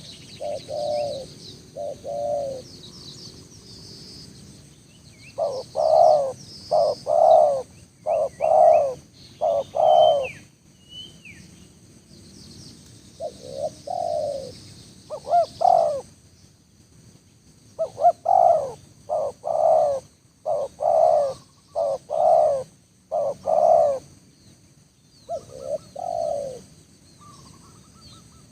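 Spotted dove cooing: phrases of short, low coo notes repeated in groups, with pauses between phrases. Small birds chirp faintly and high in the background.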